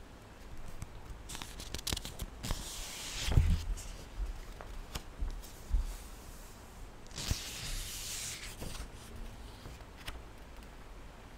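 Pages of a paperback book being leafed through close to the microphone: scattered light clicks and two longer papery swishes, about two and a half and seven and a half seconds in.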